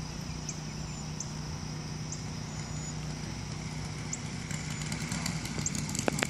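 Radio-controlled model Cessna 337, with front and rear propeller engines, running at low throttle as it comes in to land. Its engine sound grows louder and turns into a rapid popping over the last couple of seconds as it nears and touches down.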